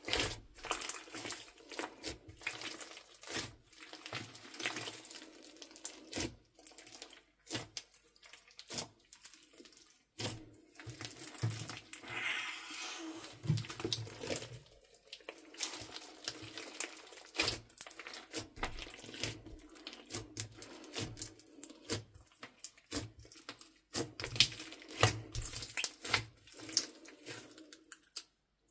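Hands squeezing, kneading and stretching a large crunchy slime mixed with beads and clay bits: wet squishing broken by many sharp pops and crackles.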